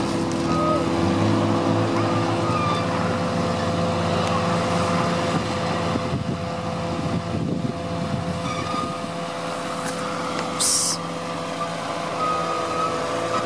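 Unimog 404 S trial truck's engine running under load as it crawls over steep, rutted ground, its note shifting up and down with the throttle. A brief sharp hiss sounds near the end.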